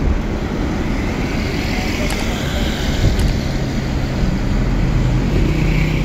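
A car driving along, with loud steady road and wind noise and a low engine hum.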